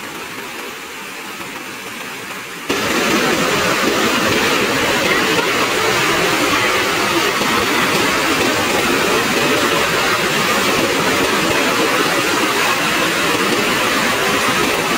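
Rushing river water, a steady noise that jumps suddenly louder about three seconds in.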